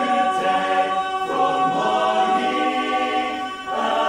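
Men's barbershop a cappella singing in close harmony, held chords that change about a second in and again near the end.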